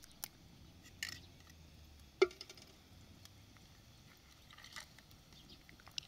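A few scattered clinks and knocks of metal utensils and dishes being handled, the loudest a single ringing clink about two seconds in.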